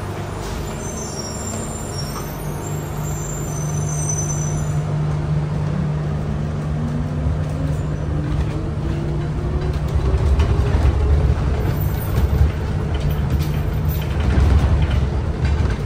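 Adtranz C801 rubber-tyred light-rail car heard from inside as it pulls away from a station. A motor whine rises in pitch as it gathers speed, and the running rumble grows louder in the second half.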